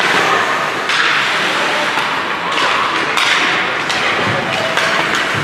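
Youth ice hockey in play: skates scraping across the ice and a few sharp knocks of sticks and puck, over a continuous din from the rink.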